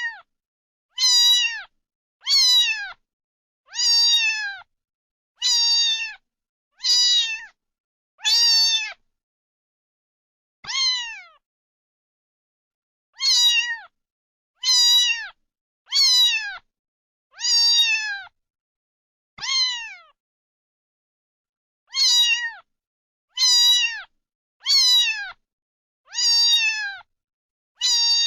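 Domestic cat meowing over and over, one short meow about every second and a half, each dropping in pitch at the end, with two longer pauses along the way.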